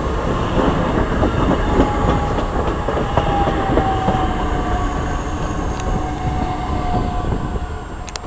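South Shore Line electric commuter train passing close and moving away: a steady rumble with wheels clicking over the rail joints. A whine slowly falls in pitch, and the sound fades near the end as the train recedes.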